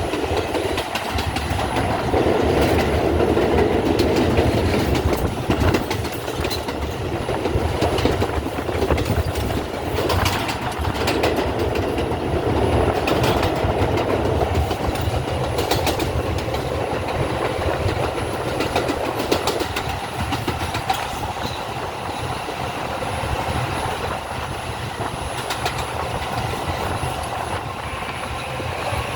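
R142 subway train running along the track, heard from on board: a steady rumble of wheels and running gear, with sharp clicks as the wheels pass over rail joints. It grows slightly quieter in the second half.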